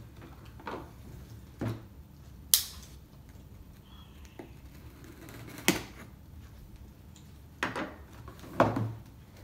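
A cardboard box being handled and slit open with a folding pocketknife on a wooden table: scattered knocks and taps, with three sharp clicks spread through.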